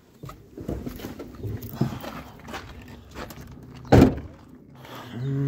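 Someone climbing out of a car, with scattered knocks and rustling, then a car door slammed shut about four seconds in, the loudest sound. Footsteps on gravel follow.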